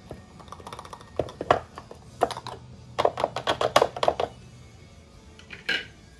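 Spatula scraping and knocking against a plastic food processor work bowl and its blade stem while clearing out guacamole: a few scattered taps, then a quick run of about ten clicking knocks a little past the middle, and one more tap near the end.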